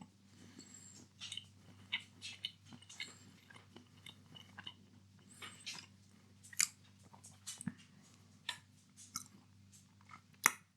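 Close-up chewing of a mouthful of chocolate sweets: soft, irregular wet clicks and smacks of the mouth.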